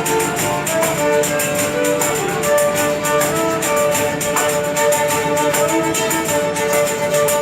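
Instrumental music: a held, sliding melody line over a fast, steady shaken-percussion beat like a tambourine. It cuts off right at the end.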